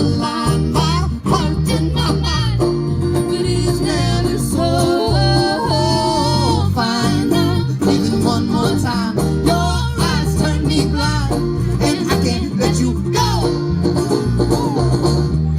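Live band music with plucked string instruments over a steady bass line.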